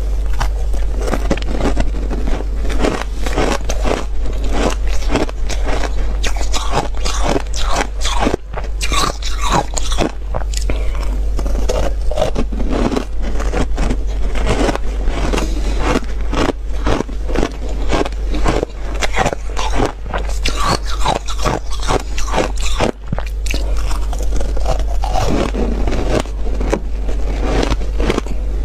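Frozen ice chunks being bitten and crunched between the teeth, close to a lapel microphone: a dense, continuous run of crisp crunches and chewing, over a steady low hum.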